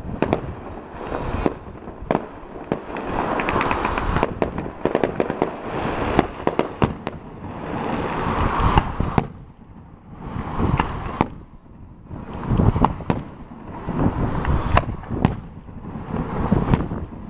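Fireworks going off in a dense barrage of bangs and crackling, coming in waves with brief lulls.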